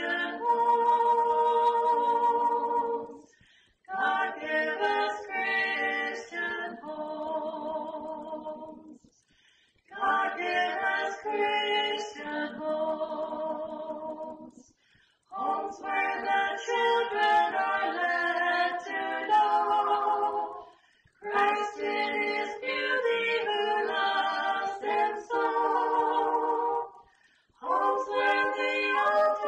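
An unaccompanied choir singing a hymn in parts, in phrases broken by short breaths every five or six seconds.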